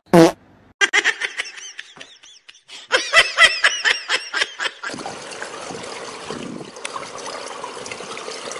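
A person laughing in quick repeated bursts, in two runs a couple of seconds apart, followed by a steady wash of water noise from about halfway through.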